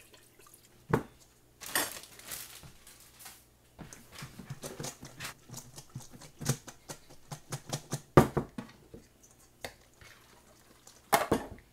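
Spoon clinking and scraping against a stainless steel mixing bowl as raw pork pieces are stirred in teriyaki marinade, an irregular run of clicks with a few sharper knocks.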